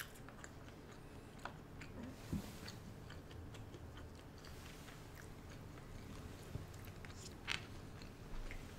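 Faint chewing and mouth sounds of people eating sushi, with scattered small clicks and taps and one sharper tap near the end.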